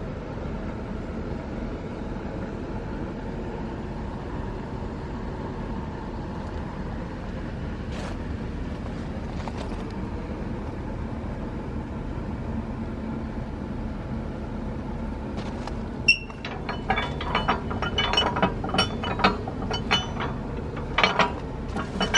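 Steady background rumble; about two-thirds of the way in, a sharp click, then a quick run of metallic clinks and rattles.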